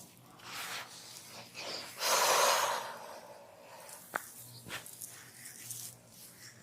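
Hands rubbing and working over oiled skin and hair during a head massage: a run of soft rubbing strokes, the loudest about two seconds in, and a single sharp click a little after four seconds.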